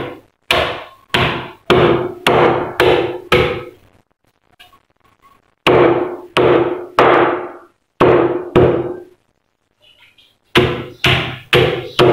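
A wooden stick pounding a wrapped bag of ice on a marble countertop to crush it for shaved ice: heavy, hollow thuds about two a second, in three bursts with short pauses between, coming quicker near the end.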